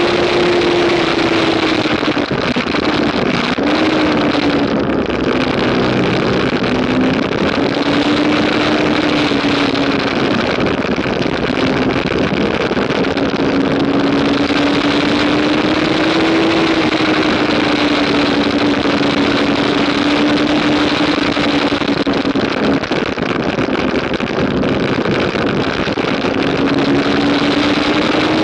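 2015 Yamaha R3's 321 cc parallel-twin engine running hard under load, its note falling and rising several times through the corners, under heavy wind rush across the microphone.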